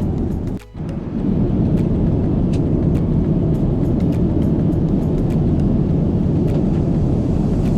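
Steady low rumble of a Boeing 787 airliner's cabin in cruise: engine and airflow noise, briefly dipping about half a second in, with faint ticks on top.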